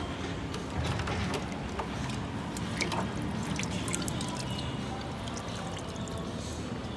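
Water splashing and dripping back into a plastic tub as a large fish is lifted out by hand, with many small drops falling over the first few seconds.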